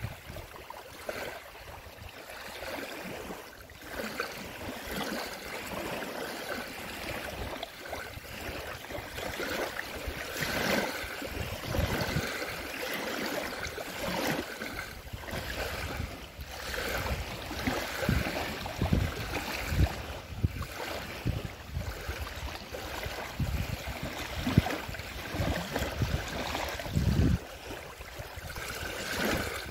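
Small lake waves lapping and splashing onto a paved boat ramp at the shoreline, swelling and easing irregularly in loudness.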